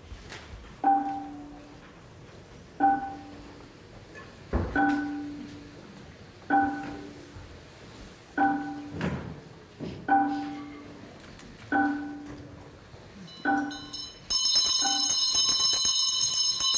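A single note on a mallet percussion instrument, struck about every two seconds, each stroke ringing and dying away, with a couple of dull thuds among the strokes. About fourteen seconds in, a loud electric buzzer starts ringing and drowns out the strokes.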